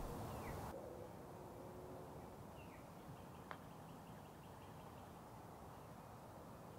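A single light click of a putter striking a golf ball about halfway through. A few faint bird chirps can be heard around it.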